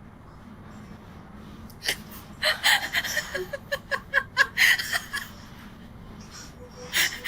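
A person laughing in a quick run of short bursts, about four a second, over a steady low background hum.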